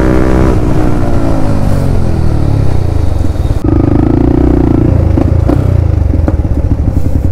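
Motorcycle engine running, its pitch sliding steadily down over the first three seconds as it slows. About three and a half seconds in, the sound changes abruptly to a steadier engine note with some light clatter.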